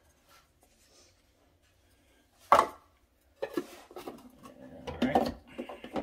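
Coffee gear being handled on a countertop: the grinder cup and a metal portafilter. One sharp knock comes about two and a half seconds in, then a string of scrapes and smaller knocks over the last few seconds.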